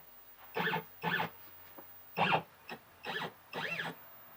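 CNC router's stepper motors whining in about six short jogs, each move rising and then falling in pitch as the axes are stepped into position to set the X-Y zero.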